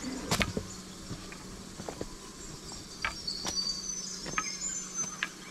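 Footsteps crunching over loose stones and dry leaf litter in a dry creek bed, in an uneven walking rhythm. Faint high-pitched chirps come in about three to four seconds in.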